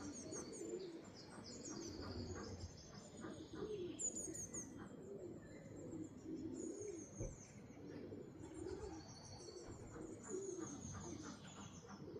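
Racing pigeons cooing, low coos repeating every second or so, with small birds chirping high above them.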